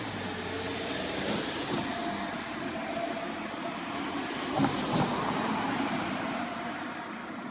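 A road vehicle passing, with a steady rushing sound that swells through the middle. Two quick pairs of knocks come about a second in and again about four and a half seconds in, the second pair louder.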